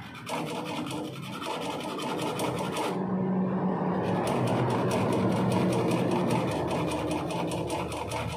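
Sandpaper scrubbed rapidly back and forth over a refrigerator pipe end, a fast, even rasping with a brief letup about three seconds in, over a steady low hum. The pipe is being cleaned bright so that it will braze well.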